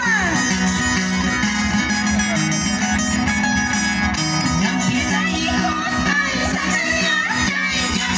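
Andean pumpin dance music played on guitars, plucked and strummed, with a steady rhythm and a few high sliding tones over it.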